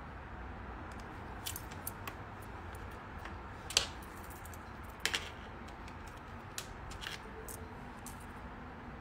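Hands handling things on a desk: scattered light clicks and taps over a steady low room hum, with two sharper clicks about four and five seconds in.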